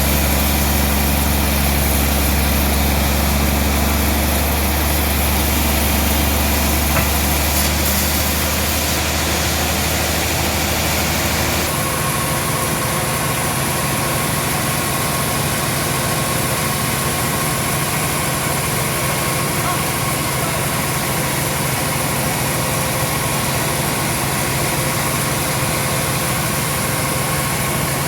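A large engine running steadily, with a hum that shifts abruptly to a different pitch about twelve seconds in.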